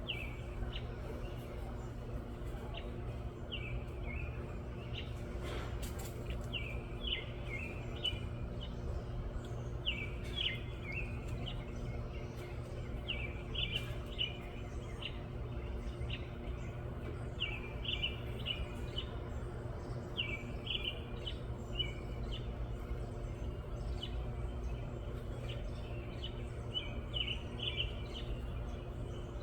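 A wren chirping in short quick bursts every second or two, over a steady low hum.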